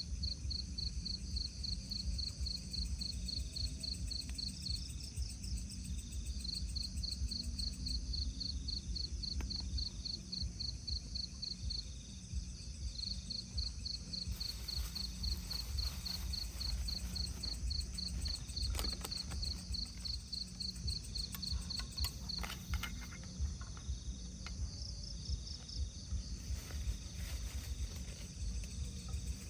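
Crickets chirping in long runs of rapid, evenly spaced high pulses over a steady low rumble. From about halfway through there are a few light clicks and scrapes of a metal utensil against the frying pan.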